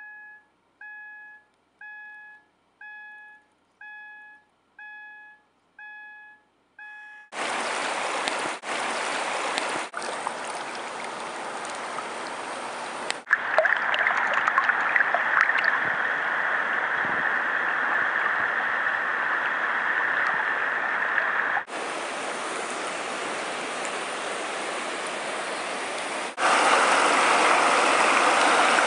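A single steady tone repeated about once a second for the first seven seconds, then river water rushing over shallow rapids. The water sound changes abruptly in level several times, with a sharper, hissier stretch near the end.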